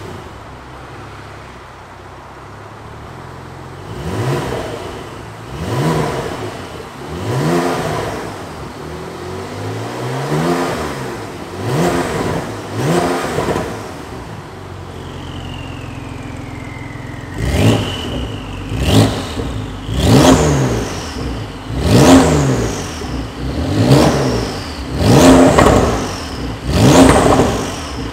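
Porsche 911 Carrera S (992) twin-turbo flat-six breathing through a Capristo full-system exhaust, idling and then blipped over and over, each rev rising and falling back, held to 3,500 rpm. The first run of revs, with the exhaust valves closed, is quieter. After a falling whistle in a short pause, the revs with the valves open are clearly louder, each followed by a high falling whistle.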